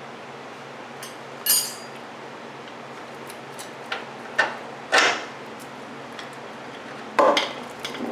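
A wrench and steel hardware clinking against the steering rack and its mounting as the rack is fitted back in place: a sharp metallic clink about a second and a half in, three more between four and five seconds, and a short clatter near the end.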